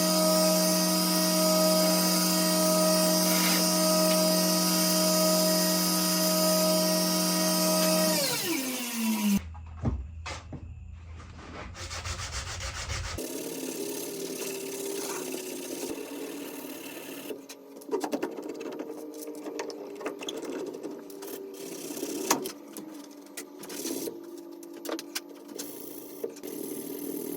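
Power tool motor running steadily with a high hum, then spinning down with falling pitch about eight seconds in. Afterwards, quieter rubbing and scraping with a faint wavering hum and scattered clicks.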